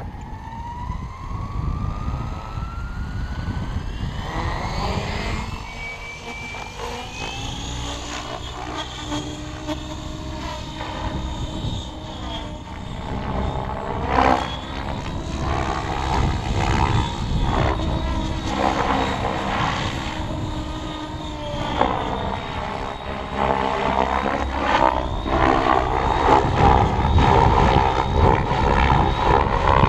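Electric Align T-Rex 700 RC helicopter stretched to 800 size, with a 490kv motor. Its whine rises steadily over the first several seconds as the rotor spools up, then rises and falls in pitch again and again as it flies around and passes.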